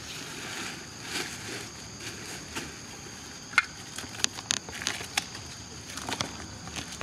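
A steady, high-pitched insect drone from the surrounding forest, with sharp clicks and crinkles of plastic being handled, a small packet being opened and plastic bags being pulled, bunched in the middle and again near the end.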